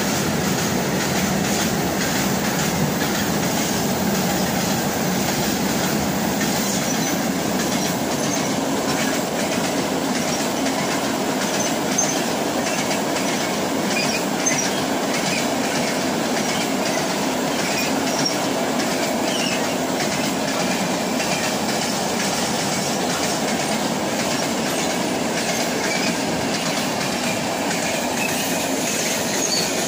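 Freight train wagons rolling past at speed: a steady rumble and rattle of steel wheels on the rails, with a few faint, short high wheel squeals.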